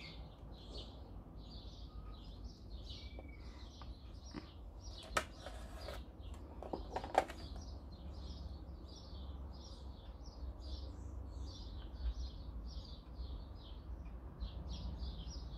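A bird chirping over and over, short high chirps a few times a second. Two light knocks come about five and seven seconds in.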